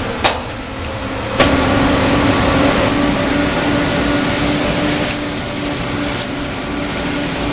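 Vacuum excavator truck running, drawing debris up through its wide suction hose out of the excavation: a steady loud rush with a droning hum, stepping up louder about a second and a half in.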